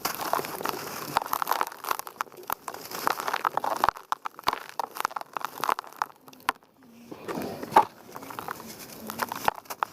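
Dry, gritty mud crumbling and crunching into dust: a dense run of small crackles and crunches, with one sharper crunch about eight seconds in.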